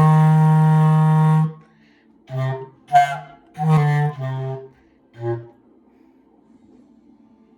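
A single wind instrument playing a slow melody: one long held note, then several shorter notes with gaps between them. It stops a little past halfway, leaving only a faint hum.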